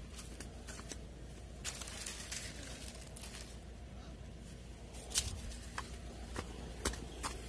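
Scattered crackles and snaps of dry plant stalks and leaves being stepped on and brushed, more frequent in the last couple of seconds, over a low steady rumble.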